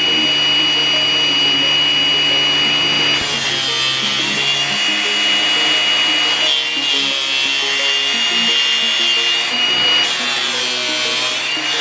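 Electric grinder running with a steady high whine, then biting into material about three seconds in, giving a rougher, wavering grinding or sawing noise.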